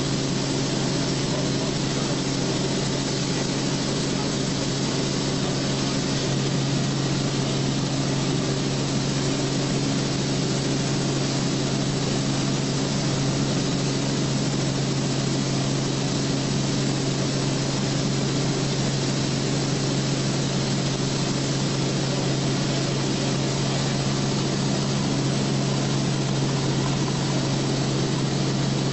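Aircraft engine and airflow noise heard inside the cabin in flight: a steady low hum that holds one pitch under a constant hiss.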